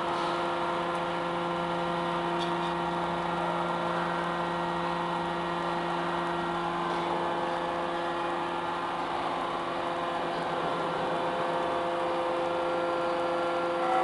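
Hydraulic power unit of a double-ram metal baler running, a steady hum that holds one pitch throughout.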